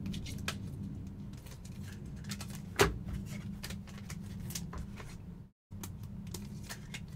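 Trading cards being handled and sorted by hand: light clicks and rustles of card edges, with one sharper click about three seconds in, over a steady low hum. The sound drops out completely for a moment a little after five seconds.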